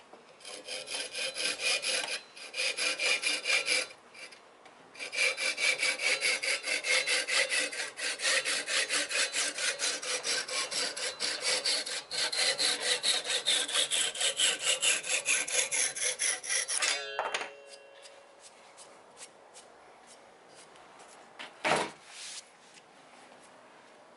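A fine-toothed flush-cut handsaw cutting off the wooden wedge and handle end flush with the top of an axe head, in quick, even back-and-forth strokes with two short breaks. The sawing stops about two-thirds of the way through. Near the end there is a single sharp knock.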